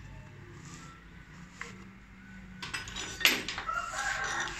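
A few light metallic clicks and a louder clatter about three seconds in, then a chicken clucking through the last second or so, over a steady low hum.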